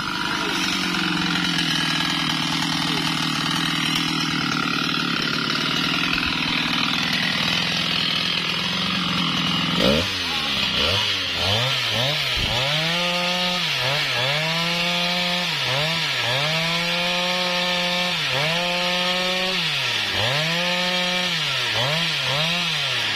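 Husqvarna 395XP two-stroke chainsaw cutting a sengon log. For the first ten seconds it runs at a steady high speed. About ten seconds in it drops and revs back up, and from then on its pitch dips and recovers roughly once a second as the bar works through the wood.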